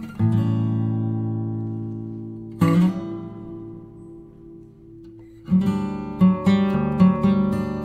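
Background music on acoustic guitar: two strummed chords left to ring and fade, then a quicker, rhythmic picked pattern starting a little past halfway through.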